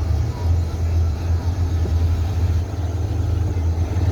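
Low, steady rumble of a car running and driving.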